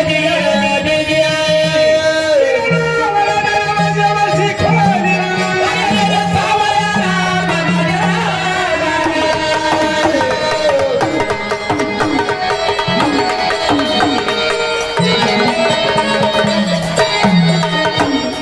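Marathi devotional folk music of a gondhal troupe: a melody instrument playing over tabla-style hand-drum accompaniment, with no clear sung words.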